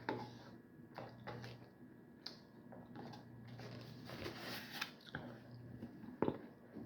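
Household handling noises: a few scattered knocks and clicks, and a rushing hiss lasting about a second and a half near the middle, over a low steady hum.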